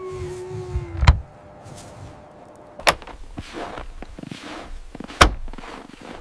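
A thin, slightly falling whine that stops about a second in, then three sharp knocks spaced about two seconds apart, with faint rustling between them.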